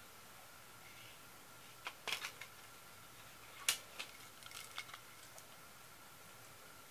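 Scattered light clicks and taps: a cluster about two seconds in, the sharpest about a second and a half later, and a few softer ones after. A faint steady high-pitched whine runs underneath.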